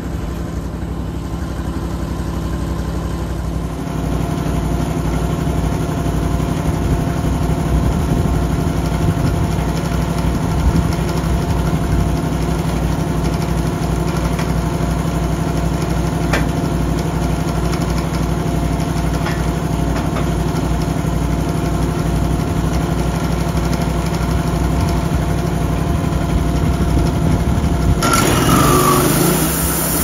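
Engine of a homemade band sawmill running steadily while the blade saws a hemlock cant. It gets louder about four seconds in, and a harsher hiss comes in near the end.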